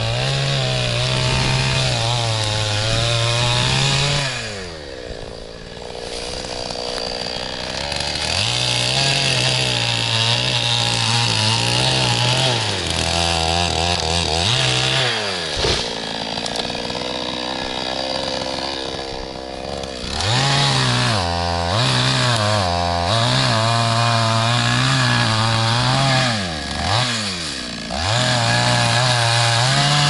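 Two-stroke chainsaw cutting into a birch, its engine running at high revs and dropping back toward idle several times before climbing again.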